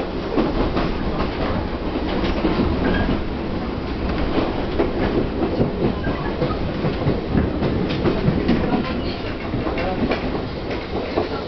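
Chichibu Railway 1000 series electric train running, heard from inside the passenger car: a steady rumble of the wheels on the rails with an irregular clatter of clicks and knocks.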